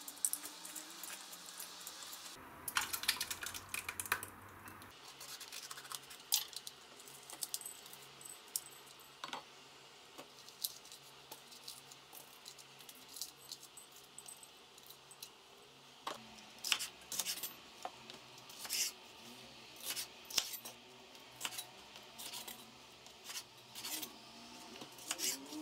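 Kitchen knife cutting sweet peppers into strips on a wooden cutting board: sharp knocks about once a second in the second half, among scattered clicks of handling.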